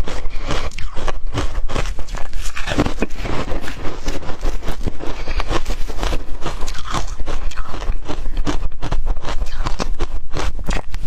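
Ice being bitten and chewed close to the microphone: a fast, unbroken run of crisp crunches.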